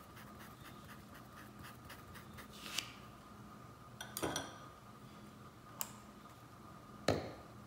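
Faint quick scratching of a flat paintbrush dabbing paint onto cloth, then a few light clicks and knocks, over a faint steady hum.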